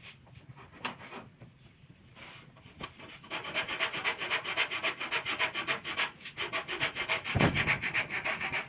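Wood being sanded or rubbed down by hand, in quick, even back-and-forth strokes at several a second that start about three seconds in, after a few light knocks. There is a dull thump near the end.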